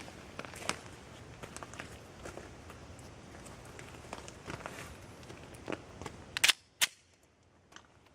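Pistol shots from a 9mm Glock 19X. The two loudest cracks come close together, about a third of a second apart, near the end, after a run of fainter sharp reports.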